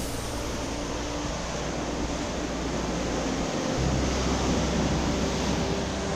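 Sea waves breaking and washing over rocks and stones at the shore: a steady rushing surf with a low rumble underneath.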